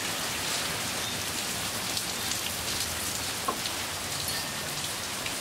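Steady rain falling on a driveway, parked cars and a lawn.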